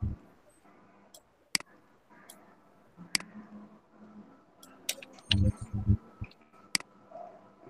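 Computer mouse clicking: a handful of sharp, separate clicks spaced a second or two apart, with a few dull low knocks a little past five seconds.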